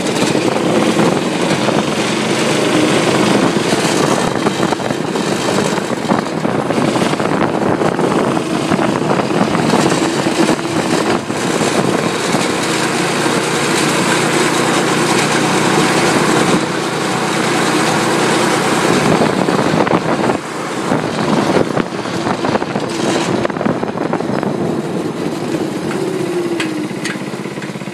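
Go-kart's 5 HP Tecumseh single-cylinder engine running while the kart is driven, its speed shifting and easing off briefly about twenty seconds in.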